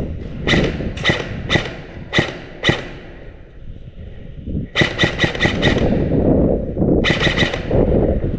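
Airsoft gun firing: five single shots about half a second apart, then a quick string of about six shots, then a short rapid burst near the end.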